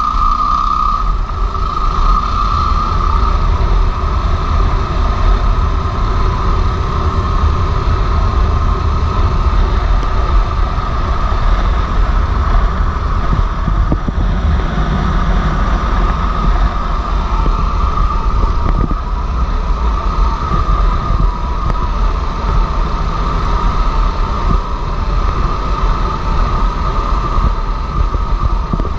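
Motorcycle riding along a gravel road: the engine runs steadily under a heavy, even rumble of wind and tyres on gravel.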